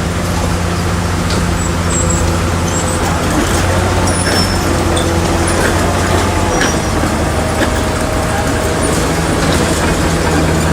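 Shantui bulldozer's diesel engine running steadily and loudly, with a few faint, short high-pitched squeaks over it.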